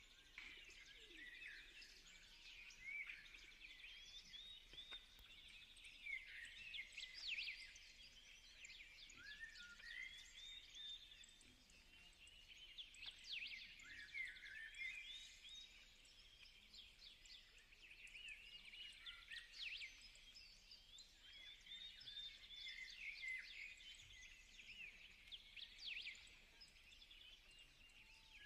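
Birds chirping faintly and continuously: many short, quick chirps and twitters overlapping, with a few louder bursts.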